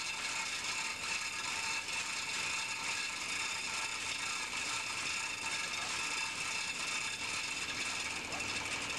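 Steady machinery noise: an even hiss with a constant high whine band, unchanging throughout.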